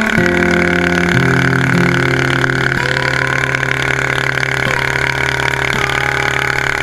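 13 hp longtail boat motor running steadily at speed, under way. Its pitch settles about a second in and then holds level.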